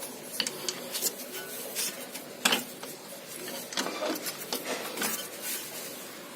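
Large screwdriver levering against a disc brake caliper to push the piston back: irregular metallic scrapes and clicks, with one sharp click about two and a half seconds in.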